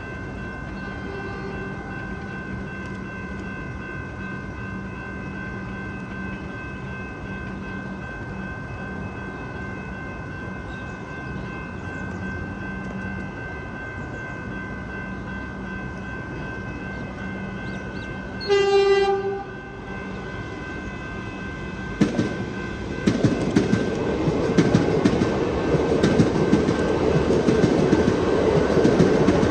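Level crossing's electronic bell ringing steadily. A train horn sounds faintly near the start, then loudly for about a second, and then an electric suburban train arrives and passes over the crossing, its rumble growing with wheels clacking over the rail joints.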